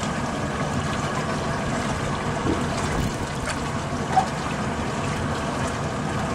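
Steady rush of wind and choppy water around a small boat on open water, with a low rumble underneath. A single short, high blip comes about four seconds in.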